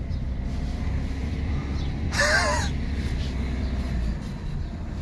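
A single harsh caw like a crow's, about half a second long, about two seconds in, over the low steady hum of a car's idling engine heard from inside the cabin; the hum drops away about four seconds in.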